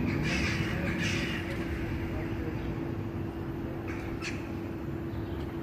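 A crow cawing: two harsh caws in the first second and a half, then two short ones about four seconds in, over a steady low hum.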